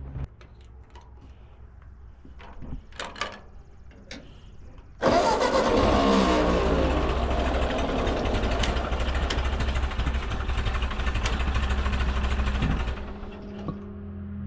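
A 1944 Ford 2N tractor's four-cylinder flathead engine is started about five seconds in after a few faint knocks. It runs loud for about eight seconds, then drops to a quieter, steady idle. This is the first start after a carburetor rebuild and fresh oil, run to circulate the fluids.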